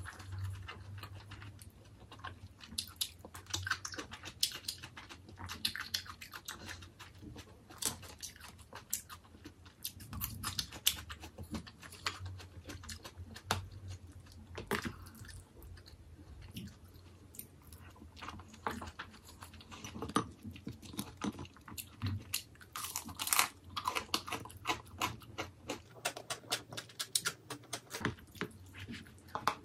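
Chewing and crunching while eating Korean Chinese food, with irregular short clicks and crackles and occasional scrapes of a metal spoon against the bowl.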